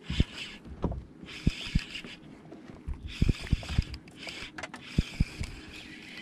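Fishing kayak and spinning rod and reel being handled while a hooked redfish is played and reeled in: a string of about ten short, irregular knocks and bumps over a steady hiss.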